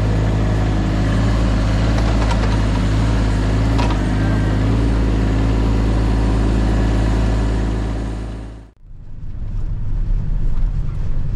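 Diesel earthmoving machine's engine running steadily, with a couple of sharp metallic knocks in the first few seconds. The engine sound fades out about nine seconds in and a deeper engine running takes over.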